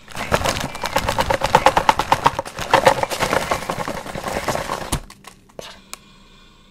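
Plastic snack wrappers crinkling and crackling as hands rummage through a box of packaged snacks, dense and loud for about five seconds, then a few scattered crackles near the end.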